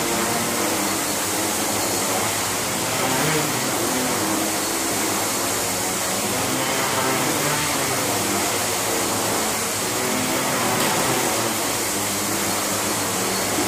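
Hexacopter's six propellers whirring steadily. The pitch wavers up and down as the motors change speed under the attitude controller's corrections.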